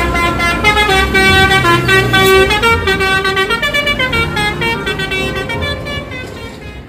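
Multi-tone 'telolet' bus horn playing a rapid melody of stepping notes, fading out near the end.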